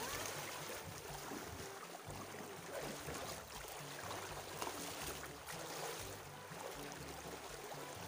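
Water sloshing and splashing as several people wade through a knee-deep stream.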